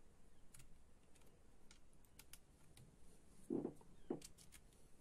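Faint small clicks of a tiny screw being handled and fitted by fingers, with two soft knocks about three and a half and four seconds in.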